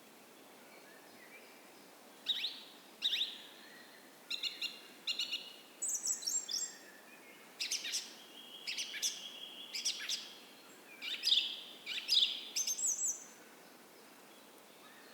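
Songbirds singing in a morning chorus: a run of quick chirps, sliding whistles and short trills from about two seconds in until near the end. A faint steady creek hiss runs underneath.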